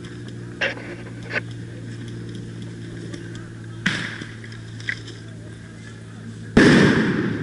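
Sharp single pops of airsoft gunfire, four scattered over the first five seconds, over a steady low hum. Near the end comes a much louder burst that dies away over about a second.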